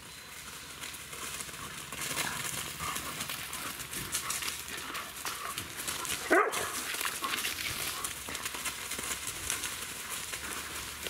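Dogs running and play-fighting on dry leaf litter, their footfalls rustling and scuffing the leaves, with one short bark a little past halfway.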